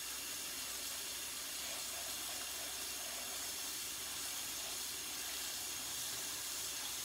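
Kitchen faucet running cold water steadily into a saucepan of mustard greens as they are rinsed by hand, an even hiss of water splashing into the pot.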